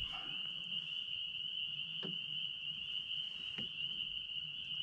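Steady high-pitched insect chorus, with two faint knocks about two seconds in and a second and a half later.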